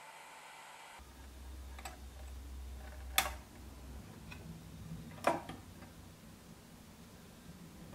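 A few sharp metal clicks from small pliers gripping and bending component leads around the turrets of a tube-amp turret board. The two loudest come about three and five seconds in.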